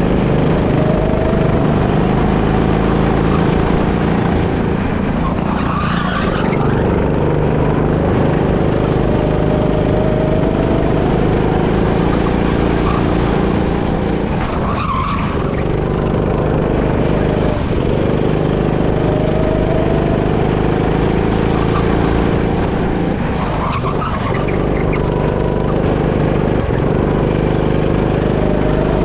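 Go-kart engine running hard, heard from on board, its pitch climbing again about every nine seconds as it pulls out of the corners lap after lap. Brief tyre-scrub bursts come about once a lap.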